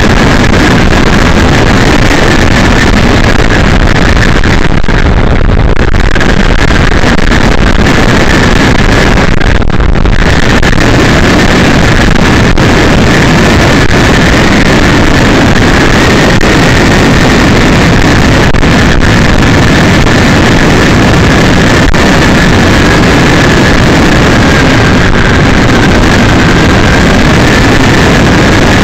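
Loud, steady rush of wind and road noise on the microphone of a bike-mounted camera at highway speed, with a faint high whine running through it.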